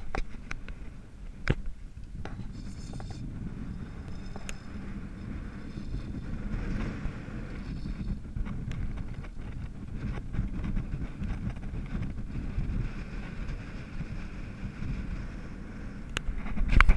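Wind buffeting an action camera's microphone, a steady low rumble, with a few scattered sharp clicks and a louder gust right at the end.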